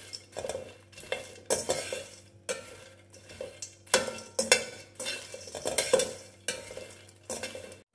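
Steel slotted spoon stirring phool makhana (puffed lotus seeds) dry-roasting in a stainless steel kadhai: the light seeds rattle and the spoon scrapes the pan in repeated strokes, about two a second.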